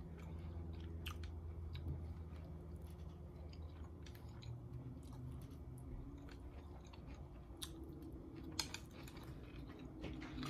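A person chewing a mouthful of food close to the microphone, with many small wet mouth clicks.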